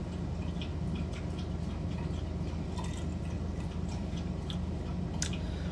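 Soda over ice being sipped and tasted from a glass: faint, irregular small clicks over a steady low hum, with one sharper click near the end.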